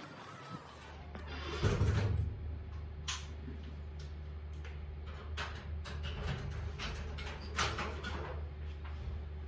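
A room door being opened and shut: a heavier thump about two seconds in, then several sharp clicks and knocks, over a steady low hum.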